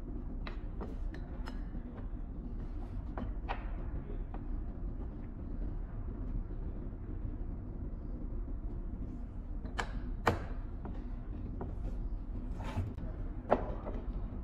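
Scattered clicks and knocks from the parts of a graphite exothermic-welding mould and its handle clamp being handled and closed, the two sharpest knocks coming in the last few seconds, over a steady low hum.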